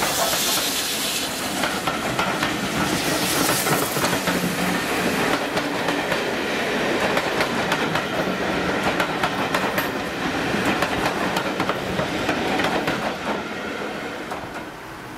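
Rake of steam-hauled passenger coaches passing close by at speed, their wheels clattering with many short clicks, fading away near the end as the train recedes.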